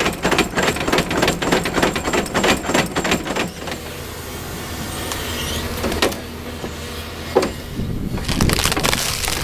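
Excavator-mounted stump removal machine at work: a dense crackling of wood and roots breaking over the steady machine noise for the first few seconds, then a few sharp single cracks, and more crunching near the end.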